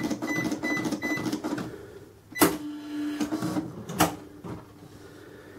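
Sam4S ER-900 series electronic cash register finishing a sale: short key beeps and its receipt printer running as the receipt prints. Then comes a sharp clunk and a brief low motor whir, with another click about a second later.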